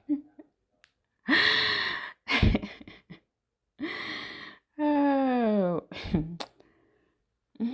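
A person reacting without words: breathy gasps and sighs, then a long drawn-out 'ohh' falling in pitch, sounds of shock and dismay.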